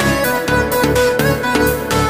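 Instrumental background music with a steady beat, about two beats a second, under a sustained melody that slides up in pitch near the end.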